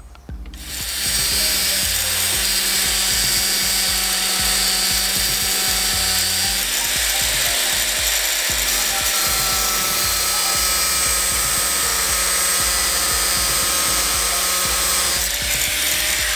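Angle grinder with a cutting disc cutting off protruding screw tips under a canoe thwart: a loud, steady, high-pitched whine and grinding that starts about half a second in.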